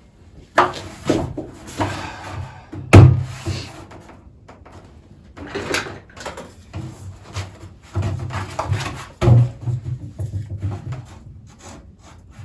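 Knocks, thumps and scraping from handling a plastic barrel and hole-saw drill after a hole has been cut in its side. The loudest knock comes about three seconds in, with others scattered through.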